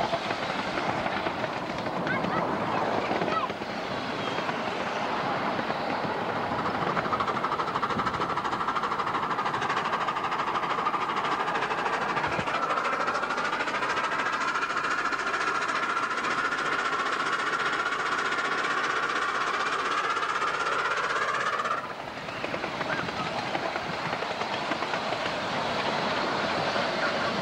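Miniature railway train running along its track, heard from aboard: a steady running noise of wheels and locomotive. A whine rises slowly through the middle and stops abruptly about 22 seconds in.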